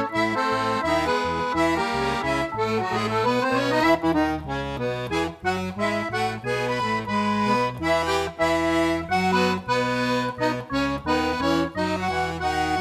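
Lively instrumental music: a quick tune over held chords, with a steady beat.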